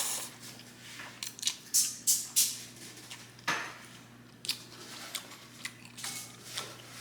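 Close-miked eating sounds of ramen noodles: irregular wet smacks, clicks and slurps of a person chewing, a few each second at times.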